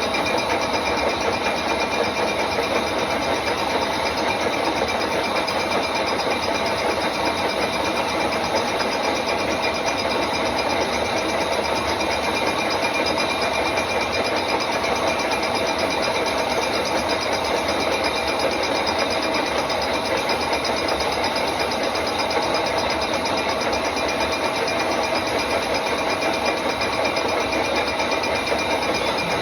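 Milling machine resurfacing a cylinder head: a steady machining sound with a constant whine of several tones over a noisy haze, unchanging throughout.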